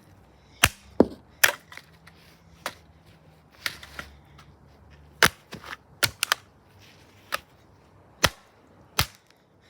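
Repeated sharp cracks of blows striking a cheap plastic toy RC car as it is being smashed, about a dozen hits at uneven intervals.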